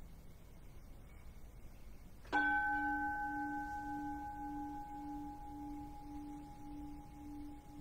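A bronze bowl bell (keisu) struck once, a little over two seconds in, then ringing on. Its low note pulses slowly while the higher overtones die away.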